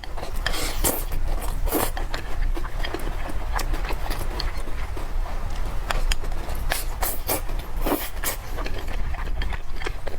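Close-miked eating: irregular wet mouth clicks and smacks of chewing, over a steady low hum.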